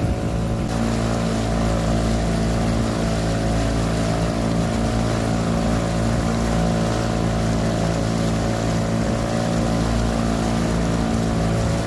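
Small boat's outboard motor running steadily under way, with the rush of the wake and water along the hull.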